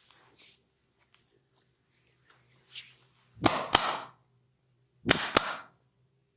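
Massage session hand-work making two quick pairs of sharp cracks, each pair followed by a short swish, about a second and a half apart. Fainter small ticks and rustles come before them.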